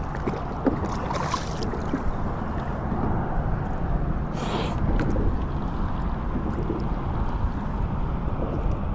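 Wind buffeting the microphone and choppy water lapping against a kayak's hull, a steady low rumble, with a brief hiss about halfway through.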